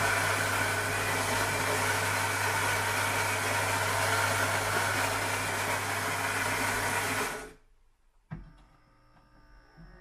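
Philips Series 1200 automatic coffee machine's built-in ceramic burr grinder grinding beans for a cup of coffee: a loud, steady grinding with a motor hum. It cuts off suddenly about seven seconds in, and a click follows about a second later.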